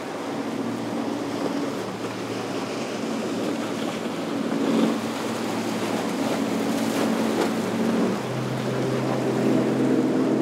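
Motorboat engines running with a steady hum that shifts to a new pitch about eight seconds in, over the wash of surf and wind.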